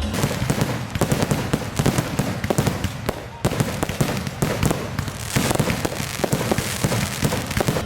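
A consumer fireworks cake firing a rapid, dense string of loud bangs with no colour effects, broken only by a short lull about three and a half seconds in.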